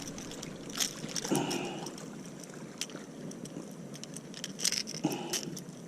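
A hooked needlefish being handled and unhooked while it thrashes: scattered sharp clicks and ticks of tackle, with two brief rustling splashy bursts, one about a second in and one near the end.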